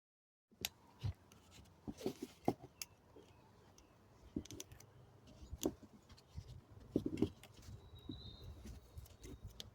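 Scattered clicks, taps and small knocks of hand work with tools and small parts, with a brief faint high chirp about eight seconds in.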